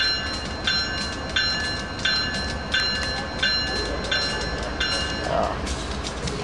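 Railroad crossing warning bell ringing in even strokes about every 0.7 s and stopping about five seconds in, over the low rumble of a slow-moving BNSF stack freight train.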